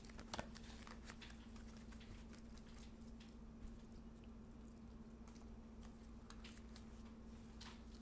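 Near silence: room tone with a steady low hum and scattered faint clicks, a little stronger near the start and near the end.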